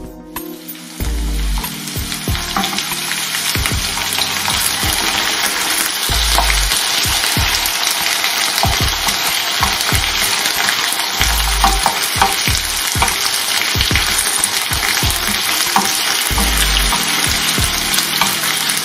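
Raw potato slices and chopped red bell pepper sizzling as they fry in a pan, the sizzle filling in about a second in. A wooden spatula clicks and scrapes against the pan as the vegetables are stirred.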